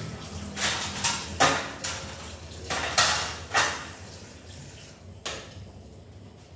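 Dishes and kitchenware clattering at a sink as they are washed and handled: a run of irregular knocks and clinks, the loudest near the middle, then a last one about five seconds in.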